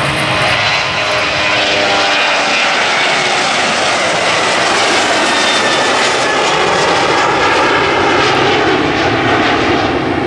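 Twin-engine Boeing 737 jet airliner at takeoff thrust as it lifts off and climbs away, a loud, steady jet-engine rush with a whine above it.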